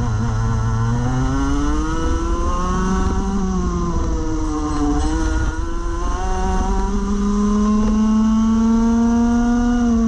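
Rotax Max Evo Senior 125cc two-stroke kart engine heard onboard at racing speed: the revs drop briefly off the throttle, pick up, dip again through a corner about halfway, then climb steadily under full acceleration down a straight. A low rumble of wind and tyres runs underneath.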